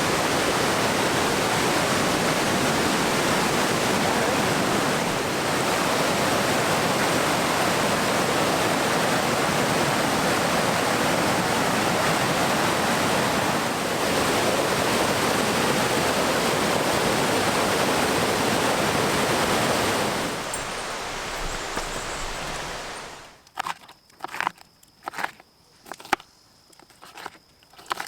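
Steady rushing of a waterfall, a loud even roar of falling water. It cuts off suddenly near the end, and a few scattered light knocks follow.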